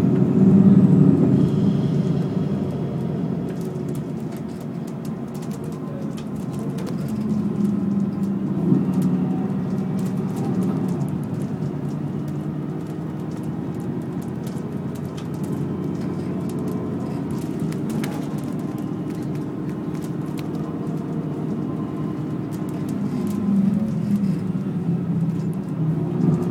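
City bus engine running as the bus drives along, heard inside the passenger cabin, a steady low hum that grows louder near the end, with scattered light clicks and rattles.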